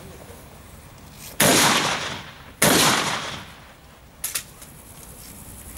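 Two gunshots about a second and a quarter apart, each echoing off for most of a second, from a competitor firing while kneeling at a practical shooting stage. A lighter, sharp click follows a little later.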